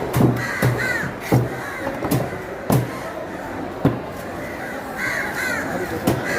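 A knife chopping cuttlefish on a cutting board: sharp, irregular strikes with a dull thud, a few each second at first and then more spaced out. Two brief high calls, about a second in and just after five seconds.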